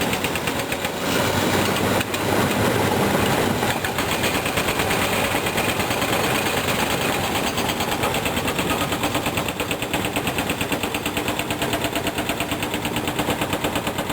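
Caterpillar D6R crawler dozer working on rock: its diesel engine runs under load with a rapid, even clatter.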